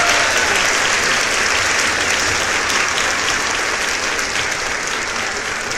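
A crowd applauding: dense, steady clapping that slowly dies down toward the end.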